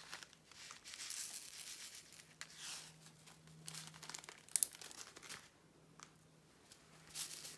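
Faint crinkling of a small plastic bag of round diamond-painting drills being handled and tipped out into a plastic tray, with scattered rustles and a sharp click about four and a half seconds in.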